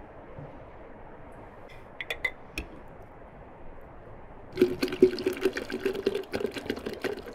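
A few light clinks of a spoon against a glass dessert bowl about two seconds in, then, from about four and a half seconds in, pomegranate juice poured from a plastic bottle into a glass pitcher, splashing steadily as the pitcher fills.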